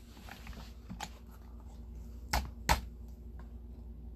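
Scattered light clicks and knocks from an M&P 15-22 rifle being handled, the two loudest close together about two and a half seconds in, over a faint low hum.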